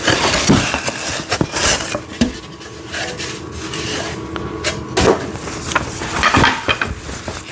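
An inner cardboard box being slid out of a shipping carton, with rustling and scraping of cardboard and many light knocks and clatters of loose parts.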